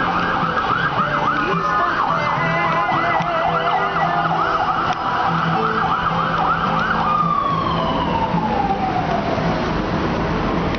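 Emergency vehicle siren cycling rapidly up and down in pitch, then winding down in one long falling tone about seven seconds in. A second, higher siren tone sounds briefly about two seconds in, over a low steady hum of street traffic.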